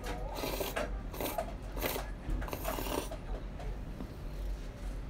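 A person slurping cold soba noodles with sticky mekabu seaweed and grated yam, in about four short slurps over the first three seconds.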